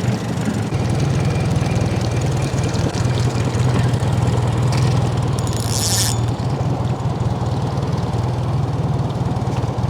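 Boat motor running steadily with an even low hum, and a short hiss about six seconds in.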